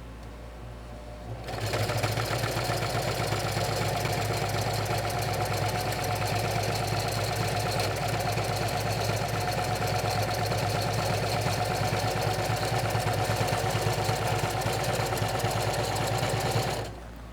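Electric sewing machine stitching a zipper into a heavy curtain, the needle running in a steady rapid rhythm. It starts about a second and a half in and stops shortly before the end, with a low hum before it starts.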